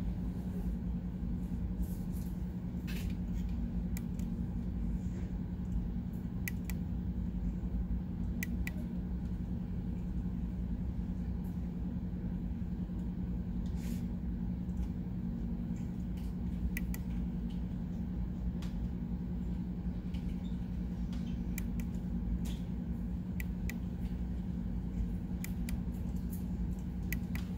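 Steady low hum, with a handful of short sharp clicks scattered through: small tactile push buttons on a microcontroller board being pressed.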